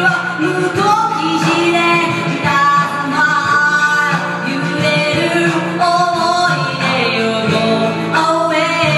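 Karaoke: a man and a woman singing through handheld microphones over a recorded backing track with guitar.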